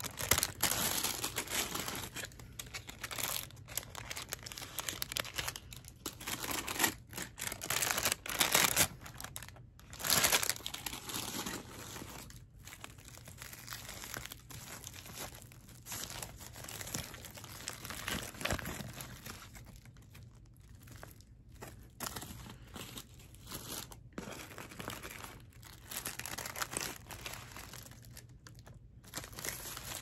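Paper food bag and foil sandwich wrapper crinkling and rustling as they are handled and unwrapped, in uneven bursts of crackle that are busiest in the first ten seconds or so.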